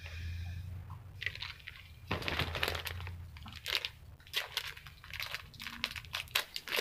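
Irregular crinkling and small clicks of a stud-earring card and its packaging being handled in the fingers.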